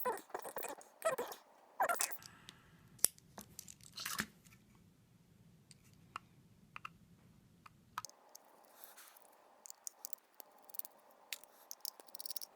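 Small clicks and scrapes of hand tools and fingers working on an iPod's internal parts, in quick bursts over the first few seconds, then sparser light ticks.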